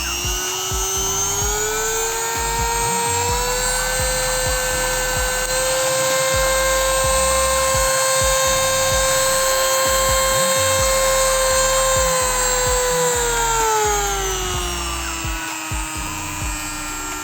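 Yasuka YDG-135A electric mini die grinder running free with a high motor whine. Its pitch climbs over the first few seconds, holds steady, then drops back down near the end as the motor speed rises and falls.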